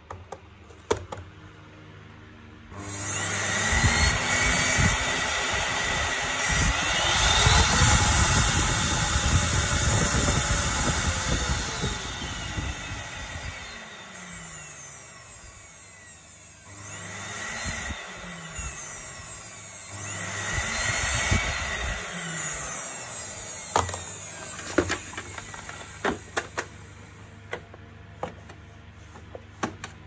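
Electrolux ZCX6400FF canister vacuum's motor, run with the top cover off. It spins up about three seconds in, rising in pitch, runs for several seconds, then winds down, and is started and stopped twice more in short runs. Sharp plastic clicks follow near the end.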